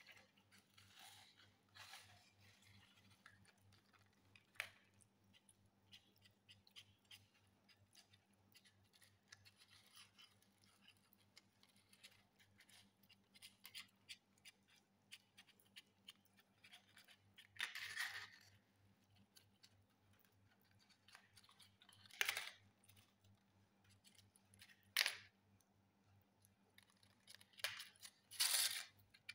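A pet crunching dry food: faint scattered clicks and crunches, with a handful of louder crunches in the second half, over a low steady electrical hum.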